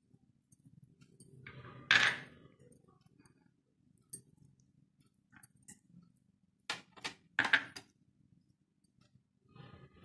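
Hands rubbing spice paste onto whole Indian mackerel on a plate, with scattered clinks and knocks of fingers, rings and bangles against the plate. The loudest is a sharp clatter about two seconds in, then a quick run of knocks a little past halfway.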